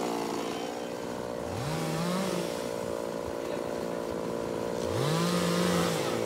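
Two-stroke chainsaw idling after the cut, its throttle briefly blipped twice, about a second and a half in and again near the end.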